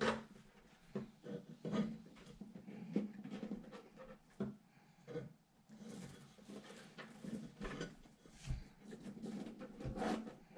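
Irregular clicks, knocks and rubbing of hands handling computer parts and power-supply cables while plugging them in.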